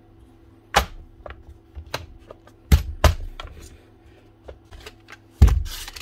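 Scattered clicks and knocks of a Milwaukee M18 cordless crown stapler's plastic housing being handled and set down on a workbench, with a heavier knock and a short rustle near the end.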